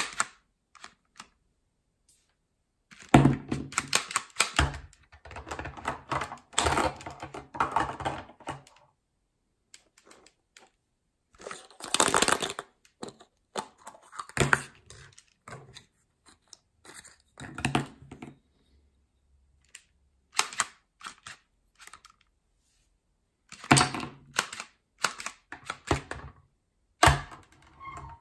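Hard plastic toys clicking and clattering in bursts: plastic surprise eggs and a plastic toy claw grabber being handled, with quiet gaps between bursts.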